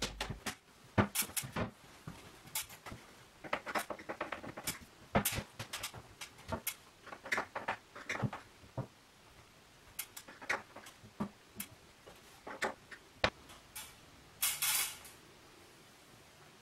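Scattered light clicks and knocks of wardrobe cabinet doors and their hinges being handled and adjusted, with a short scraping rustle near the end.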